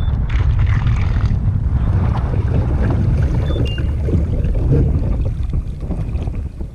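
Wind buffeting an action camera's microphone on open water, a heavy steady low rumble, with a few faint small knocks as a caught bass is handled and released over the side of the kayak. The rumble eases a little near the end.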